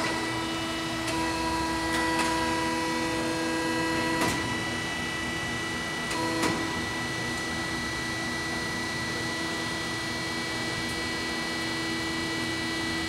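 Marvel 15A9 automatic horizontal band saw switched on in auto mode: a sudden start, then a steady mechanical whine made of several even tones, with a click about four seconds in and another about six and a half seconds in as the machine cycles.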